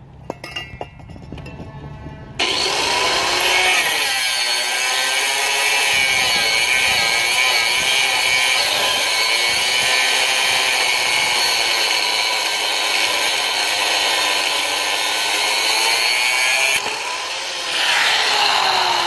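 Angle grinder with a thin cut-off disc cutting through a stuck universal-joint bearing cap. It starts suddenly about two and a half seconds in, its pitch wavering as the disc bites, eases briefly near the end, then cuts again with a falling pitch.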